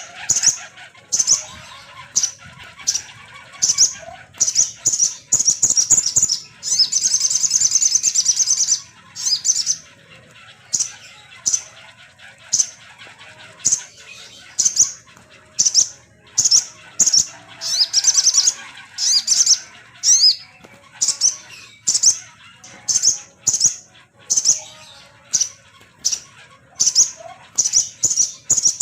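Sogon (mountain tailorbird) song played as a lure recording: a rapid series of short, sharp, high notes with longer trilled runs twice, meant to provoke a kept sogon into singing.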